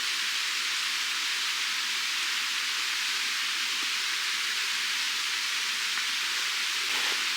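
Meat frying in a pan: its fat sizzles with a steady hiss.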